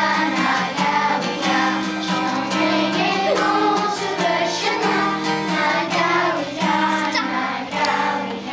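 A class of young children singing a song together, accompanied by a strummed acoustic guitar.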